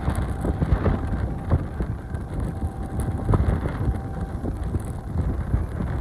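Low, steady jet engine noise from an Airbus A320neo's CFM LEAP-1A turbofans at climb thrust, heard from the ground as the airliner climbs away, with crackles and wind buffeting on the microphone.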